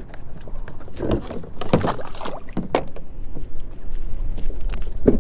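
A handful of short knocks and thumps on a fishing kayak as gear is handled aboard, over a low steady rumble.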